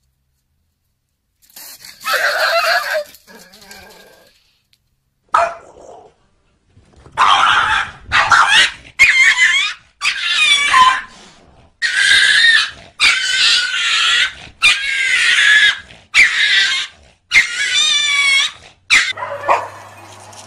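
A dog crying out in a run of about ten squealing yelps, each under a second long and wavering in pitch, after a short louder outburst about two seconds in.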